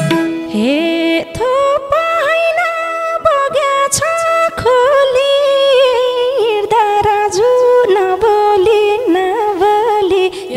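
A woman singing a slow, ornamented Nepali dohori folk melody into a microphone, her voice gliding and bending between held notes, over a steady held drone, with a few soft drum taps.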